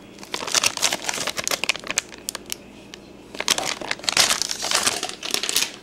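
Plastic bags of soft-plastic fishing lures crinkling as they are handled and dropped into a plastic tackle bin, in two spells of crackling with a short pause in the middle.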